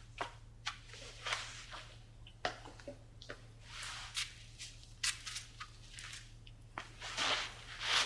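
Footsteps across a floor with clothing rustling, scattered soft clicks and swishes, ending with someone sitting down on a sofa near the end, over a faint steady low hum.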